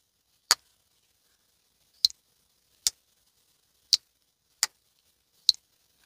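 Twosun TS197 slip joint knife's blade being opened and closed, snapping into place against its steel backspring: six sharp, separate clicks, unevenly spaced. This is the knife's walk and talk, the snap that shows the tension of the backspring.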